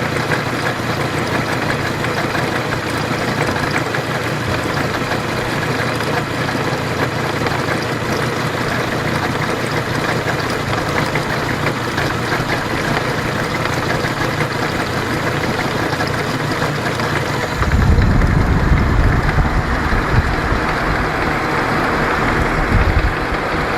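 Honda G20A inline-five engine idling steadily with a knock of unknown origin. About eighteen seconds in, a heavier low rumble comes in and stays.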